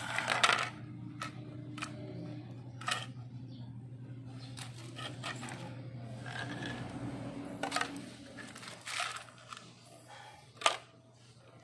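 Aluminium composite panel address plates being handled, with clear plastic film crinkling: a scattered series of sharp clicks and taps over a steady low hum.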